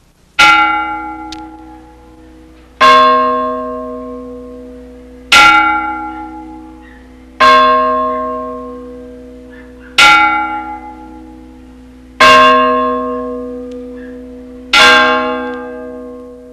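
Church bell tolling: seven slow strokes about every two and a half seconds, each ringing on and fading before the next.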